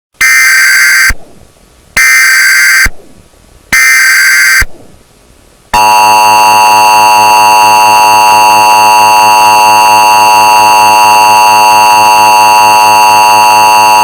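Emergency Alert System tornado warning: three short data bursts of the SAME header, about a second each, then the steady EAS attention tone for about eight seconds, cutting off suddenly. Very loud and distorted.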